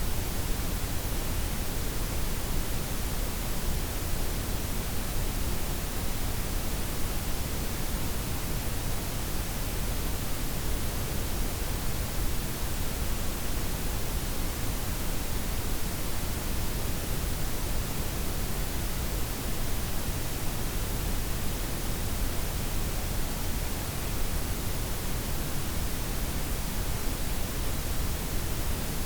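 Steady synthetic noise blend of white, pink and brown noise, an even hiss weighted toward the low end, with the highs gently rolled off and no changes or events.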